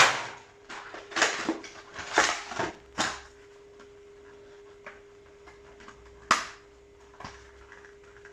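Trading-card packaging being handled and opened: a run of short crinkles and rustles, clustered in the first three seconds with another near the end, and light clicks between them. A faint steady hum runs underneath.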